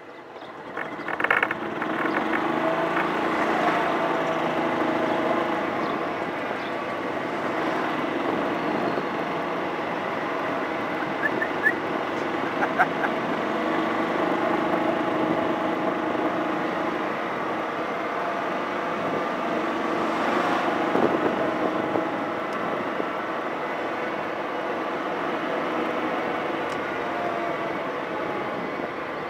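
Small engine of a slow-moving vehicle running as it drives along, its pitch rising and falling with speed. It picks up about a second and a half in as the vehicle pulls away.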